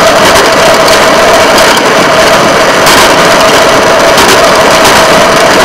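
Engine of a rail patrol vehicle running steadily as it travels along the track, with a constant whine over the running noise.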